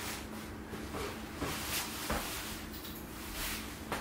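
Scattered light knocks and rustles of small tools and materials being moved around on a fly-tying desk while searching for a whip-finish tool.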